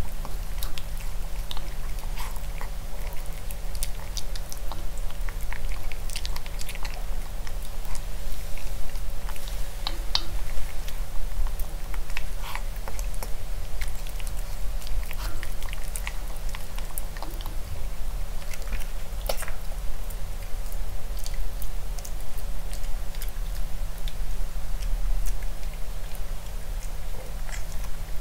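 Maltipoo puppy eating from a clear plastic bowl: steady, irregular chewing and biting with many small clicks and smacks of teeth and tongue against the food and bowl.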